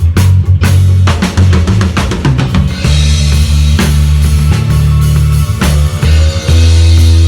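Live band playing: a drum kit's kick and snare hits over a deep, sustained bass line, the sound getting brighter about three seconds in.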